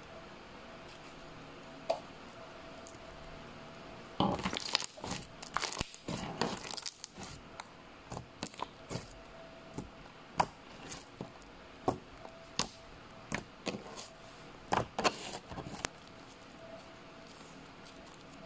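Slime being stretched and pressed by hand, giving sticky pops and crackles: a dense run of them a few seconds in, then single sharp pops about a second apart.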